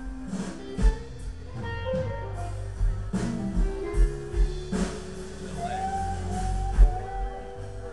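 Live blues band playing: an electric guitar lead with bent notes over drums, through the stage sound system.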